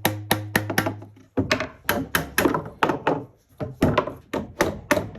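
Hammer tapping metal eyelets into a wooden board: a run of sharp, irregular knocks, several a second.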